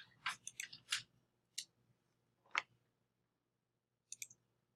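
Faint, irregular clicks of a computer mouse: a quick cluster in the first second, two single clicks after it, and a quick pair near the end.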